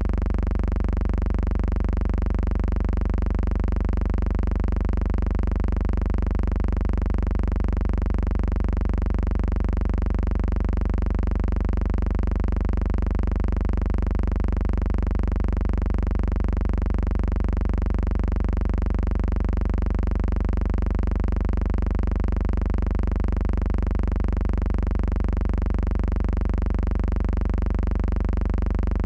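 A steady low hum that does not change at all, sitting mostly in the bass, with no other sound on top of it.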